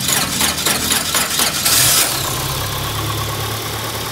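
Peugeot 306 engine cranked by its starter motor, about five compression strokes a second, then catching with a short burst about two seconds in and settling into a steady idle.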